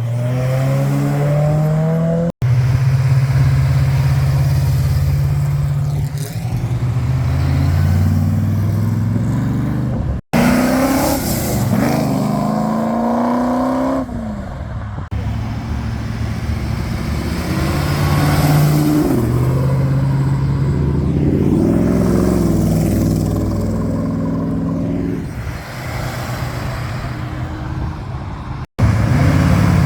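Muscle car engines revving and accelerating, their pitch climbing and falling in several runs. The sound breaks off abruptly three times where one shot cuts to the next.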